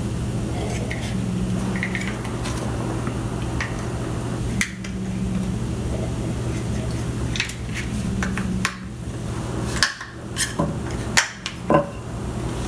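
Clicks and light knocks of a plastic infrared thermometer case being handled and pried apart, a few scattered and several in quick succession near the end, over a steady low hum.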